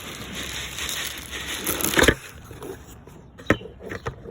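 A bird feeder being wrestled open one-handed: a rough rattling and scraping for about two seconds ends in a loud knock, followed later by two sharp clicks.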